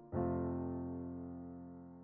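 Soft piano background music: a chord struck just after the start, left ringing and slowly dying away.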